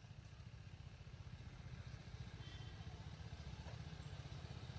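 Motorcycle engine running with a low, pulsing rumble that slowly grows louder.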